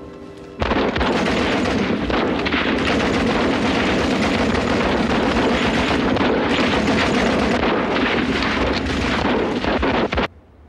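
Dense battle gunfire, rapid machine-gun and rifle fire, starting suddenly about half a second in and cutting off abruptly near the end.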